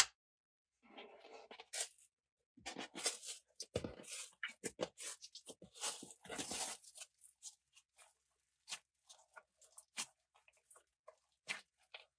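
Clear slime loaded with crumbled makeup being folded and squeezed by hand, making wet crackling and popping. The crackling is dense for a few seconds and then thins to scattered small pops. A single sharp click comes at the very start.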